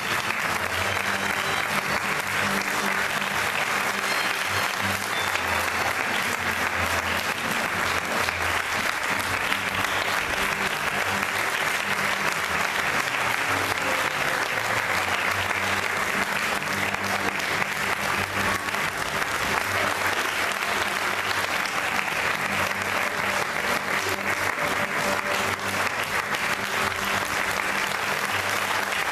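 Sustained audience applause, steady and dense throughout, with music playing underneath.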